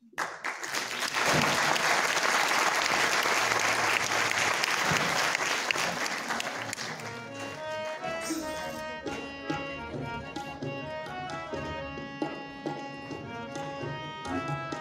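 Audience applauding for about seven seconds, then instrumental music takes over: a held melody with tabla drumming.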